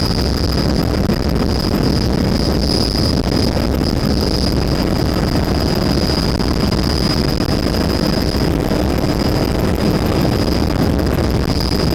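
Helicopter in flight: steady engine and rotor noise with a high, steady whine over it.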